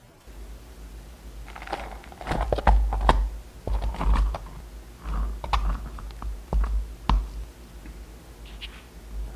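Hard objects being handled on a work surface: an irregular run of sharp clicks and knocks, busiest in the middle, over a low handling rumble.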